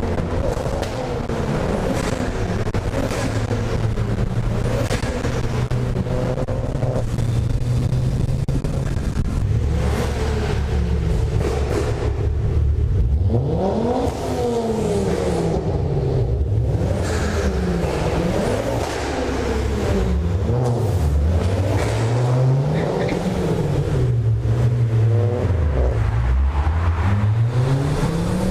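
Ford Focus RS turbocharged five-cylinder engines revving hard in a road tunnel, the pitch climbing and dropping again and again, about every couple of seconds in the second half.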